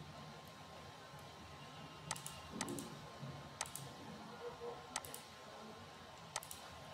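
Computer mouse clicking: a handful of single sharp clicks spaced a second or so apart.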